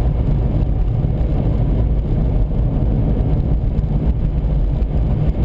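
Steady low rumble of a car driving on a highway, heard from inside the vehicle: engine, tyre and wind noise.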